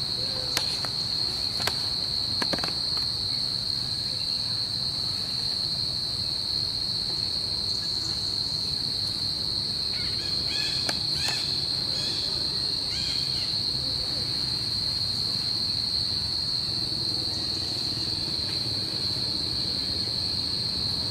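Steady, high-pitched insect drone holding one unbroken tone. A few short chirping calls come through about halfway.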